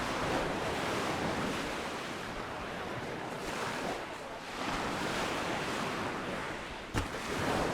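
Small Mediterranean waves breaking and washing up a sandy beach, swelling twice, with a little wind on the microphone. A single sharp click sounds near the end.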